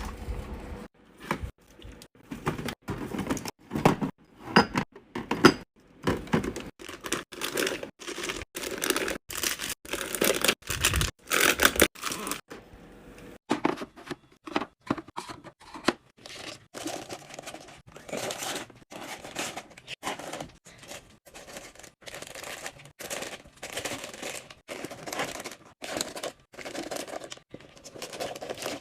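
Plastic packaging being torn open and crinkled, with a dense, irregular run of short clicks and rustles as snack and drink packages are handled while a fridge is restocked.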